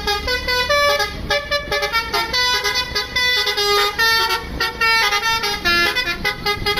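Bus basuri horn, a multi-tone electric 'telolet' horn, playing a quick melody of short notes that change pitch several times a second.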